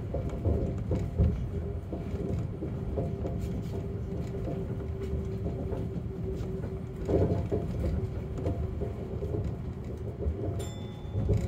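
Chiba Urban Monorail Type 0 car running along its elevated track, heard from the driver's cab: a steady low rumble with a steady hum through the middle, and a louder thump about seven seconds in.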